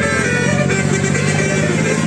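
Bus engine running close by while a Basuri-type telolet musical horn plays a tune of several changing notes over it.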